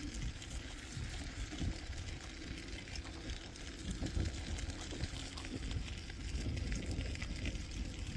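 Bicycle rolling along a dirt and gravel path: a steady low rumble of tyres and wind on the microphone, with many small crackles and rattles from the path and the bike.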